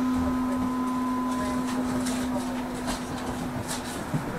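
Cabin sound of a standing trolleybus: a steady electrical hum that cuts off shortly before the end, with a few faint clicks.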